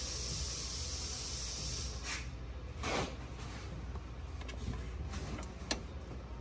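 Light metal clicks and taps as bolts and washers are pushed by hand through a steel ATV lift bracket and shock mount, with a brief rustle near the middle. A steady hiss under them cuts off about two seconds in, leaving a low hum.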